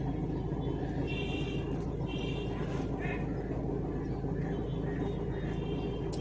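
Tata Zest's 1.3-litre Quadrajet four-cylinder diesel idling steadily with a low, even hum.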